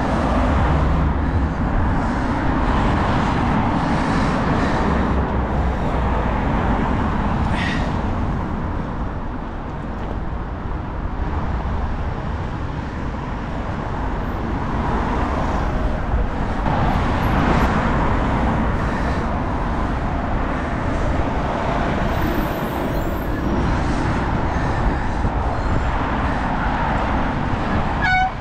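Road traffic noise: cars running and passing close by on a busy urban road, a steady rumble that swells and eases as vehicles go by.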